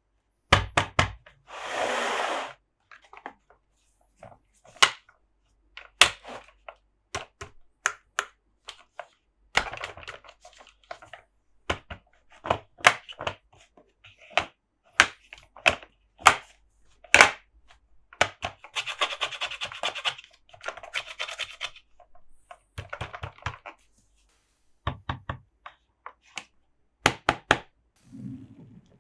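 Close-up ASMR handling of Monster Jam toy trucks and their packaging: scattered taps and clicks, with a few short stretches of rubbing and scratching, the longest about two-thirds of the way through.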